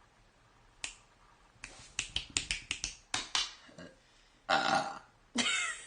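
A quick run of about a dozen sharp clicks, then a person burping twice in short rough bursts.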